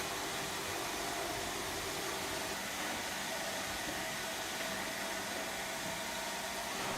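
Steady machine noise: an even hiss with a faint hum under it, unchanging throughout.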